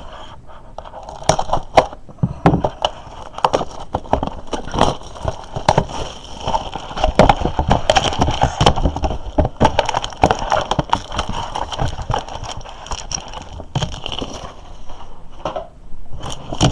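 Packaging crinkling and crackling as a retail box of football trading cards is unwrapped and opened, with many quick sharp rustles and clicks.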